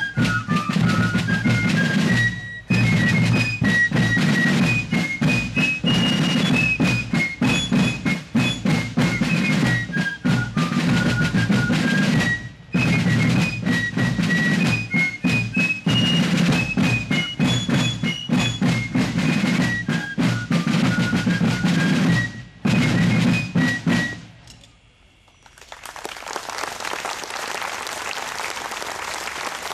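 Fife and drum corps playing a march: several wooden fifes carrying a shrill melody over rope-tensioned field drums, the tune coming round again about every ten seconds. The music stops about 24 seconds in, and a steady rushing noise follows.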